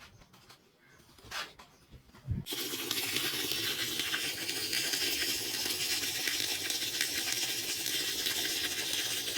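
Water running steadily, starting suddenly about two and a half seconds in after a near-silent opening with two faint knocks.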